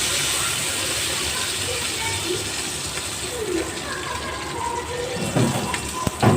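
Foli fish kofta frying in hot oil, a steady sizzle. Two or three sharp knocks near the end, the loudest just before it stops.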